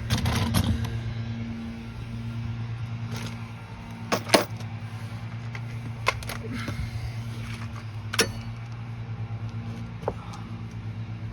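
Metal tools clinking and knocking against a sway bar link and its bolt during hand work: a scatter of sharp metallic clinks, the loudest a little past four seconds in and at about eight seconds, over a steady low hum.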